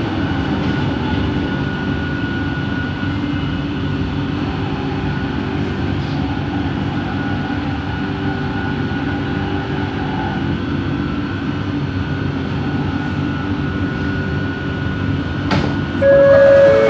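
Bombardier Innovia ART 200 train running, heard from inside the car: a steady rumble with a whine from its linear induction motors. Near the end a click, then a two-note falling chime from the train's on-board system.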